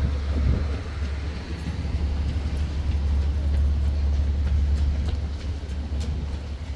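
Wind buffeting the microphone: a strong, uneven low rumble, with a few faint clicks.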